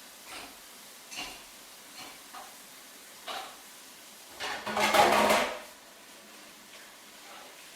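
Cartoon sound effects of an electric kettle being handled and filled with water: several short soft blips, then a louder noisy burst of about a second in the middle.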